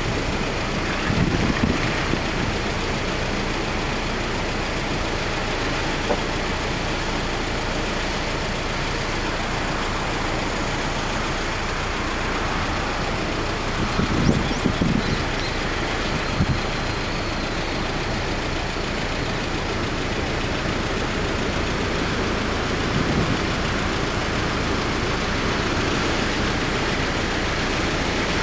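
Steady rush of typhoon wind and surf on the coast, with gusts buffeting the microphone in low thumps about a second in and again around fourteen and sixteen seconds in.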